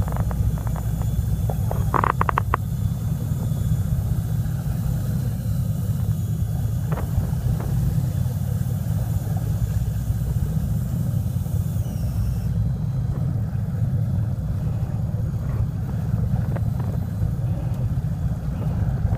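Fishing boat's engine running steadily, a constant low rumble, with a few short knocks about two seconds in.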